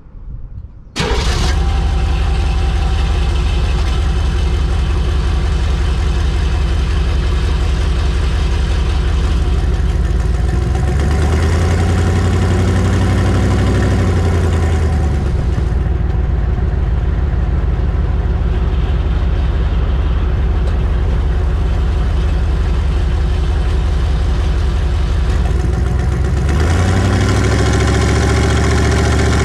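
Humvee's V8 diesel engine idling at the exhaust tip, then revved up and back down once about a third of the way in, and revved up again near the end.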